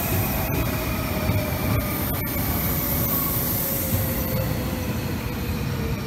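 Tobu 9050 series electric commuter train passing at speed and moving away: steady rumble of steel wheels on the rails, with a faint whine that slowly falls in pitch.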